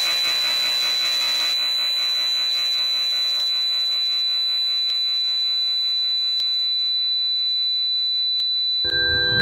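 A steady, high-pitched electronic tone held at one pitch over faint background music; the music swells briefly near the end.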